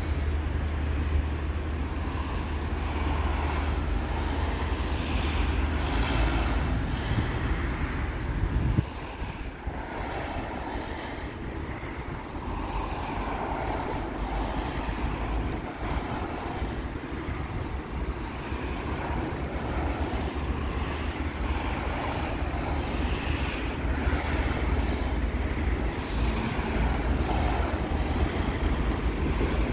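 Outdoor city ambience: a low rumble of wind on the microphone over distant traffic. The rumble drops off suddenly about nine seconds in and comes back toward the end.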